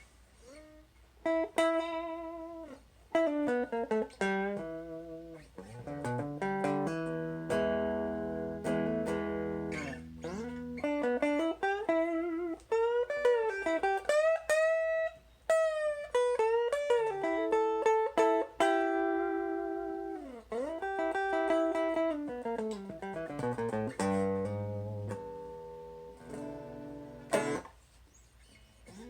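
Electric guitar played through a small Gibson BR-9 tube amplifier, plucked notes and chords with many notes sliding up and down in pitch. The playing is broken by a few short pauses.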